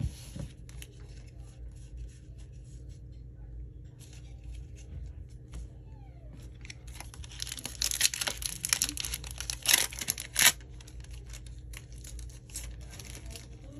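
Foil Pokémon booster pack wrapper being torn open and crinkled: a dense burst of crackling about eight seconds in that lasts around three seconds, with quieter rustling and card handling before it.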